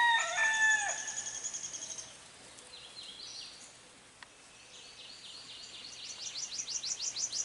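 A rooster's crow trails off in the first second. Small birds then sing: first a fast high trill, then, from the middle on, a run of quick, falling high notes at about five a second.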